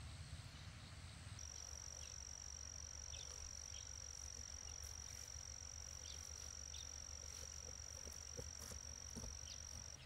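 Faint rural outdoor ambience: a steady high-pitched insect drone starts about a second in and holds, with a few short bird chirps over a low rumble.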